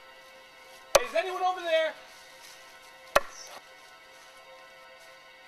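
Two heavy chopping blows about two seconds apart, the first followed by a short wavering cry, over a faint steady drone.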